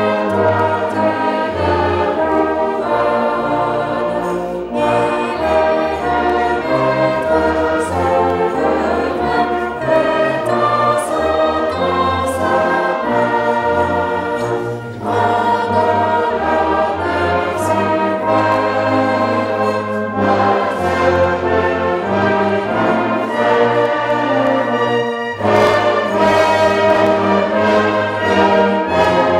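A brass band of cornets and euphoniums accompanies a congregation singing a French hymn verse in unison, the voices and brass moving together in phrases.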